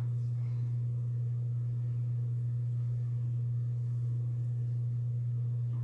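A steady low-pitched hum, one constant tone that does not change, over a faint hiss.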